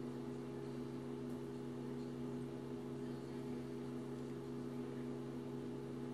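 A steady low electrical hum of room tone; the slow pour of honey makes no sound of its own.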